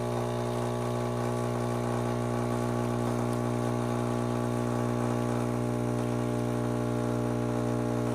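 Small electric machine running with a steady, unchanging hum.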